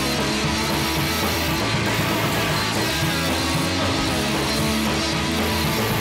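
Rock music with guitar and drums, steady in loudness.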